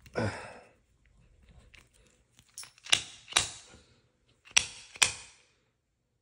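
Sharp clicks from an AR-15 buffer being worked by hand during reassembly: two pairs, each pair about half a second apart, the first about three seconds in and the second about four and a half seconds in, after a brief rustle at the start.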